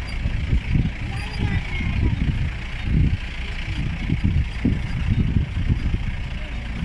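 Moving vehicle: engine and road rumble with wind buffeting the microphone in uneven gusts.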